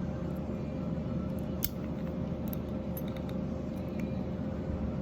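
Light plastic clicks and faint rattles of a Honda CR-V key fob being handled while its release lever is pushed down to free the mechanical key, a few scattered ticks over a steady hum.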